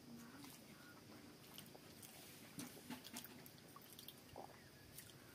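Faint eating by hand: chewing, with small scattered clicks and squishes as fingers work water-soaked rice and mashed vegetables in steel bowls, a few clustered about halfway through, over near-silent room tone.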